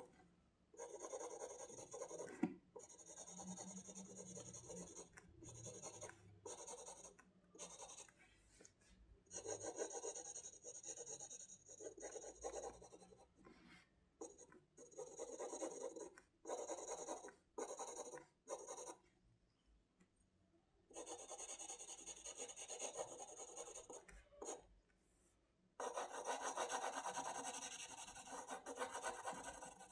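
Pencil shading on paper: stretches of scratchy strokes a second or a few long, broken by short pauses, with a longer pause about two-thirds of the way through.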